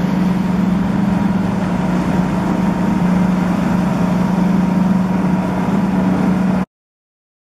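Motorboat engine running steadily under way, heard from aboard the boat, with a steady low hum over the rush of water and wind. The sound cuts off suddenly near the end.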